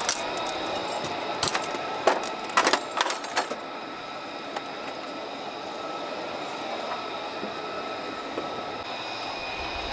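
A metal tool case being handled and opened, with several sharp metallic clanks and rattles in the first three and a half seconds. Under them runs a steady mechanical drone with a few thin high whines.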